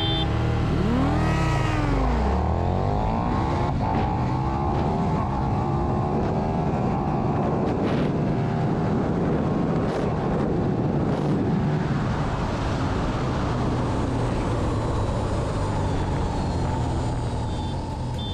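KTM 1290 Super Duke R's V-twin engine through a stock exhaust, revving hard as the bike launches and accelerates flat out. Its pitch rises and falls in the first couple of seconds, then a heavy, steady rush of wind and engine noise at high speed carries on, with a few sharp clicks along the way.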